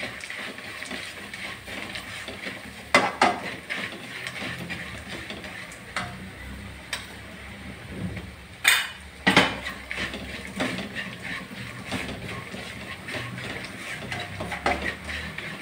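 Wooden spatula stirring and scraping a mix of fried shallots, garlic and dried turkey berries around a non-stick kadai. A few sharp knocks of the spatula against the pan stand out, the loudest about three seconds and about nine seconds in.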